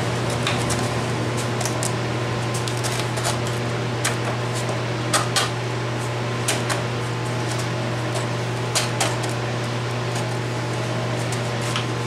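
Light clicks and taps from a sanding belt being slid onto the rollers of a switched-off belt sander and handled against its metal frame, about eight scattered through, over a steady low hum.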